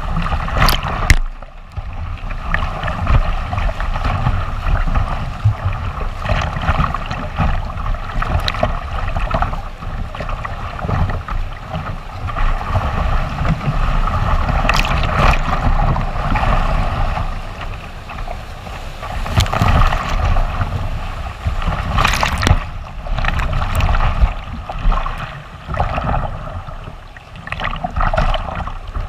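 Rushing whitewater on a river run by kayak, a steady loud wash with occasional sharp splashes, and wind rumbling on the microphone.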